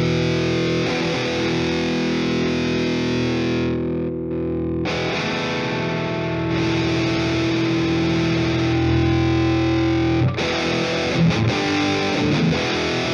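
Distorted electric guitar played through the Proteus neural amp-capture plugin running a model of the Ignite Emissary amp sim, with its drive (input gain) turned up. It plays held chords with a short break about four seconds in, a new chord ringing until about ten seconds, then quicker picked notes near the end.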